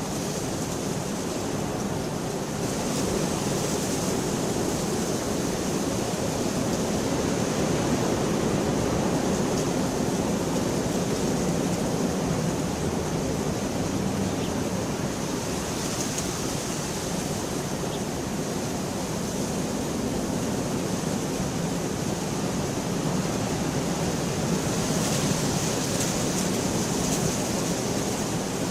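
Steady heavy rain: a dense, even hiss that swells a little now and then.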